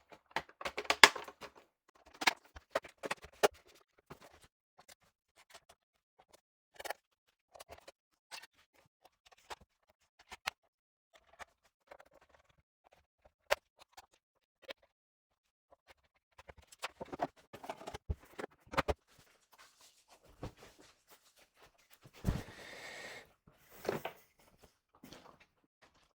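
Hands working at a laptop's plastic casing: scattered clicks, taps and scratches, with a longer rubbing scrape near the end, as stuck-on grime is cleaned off the base.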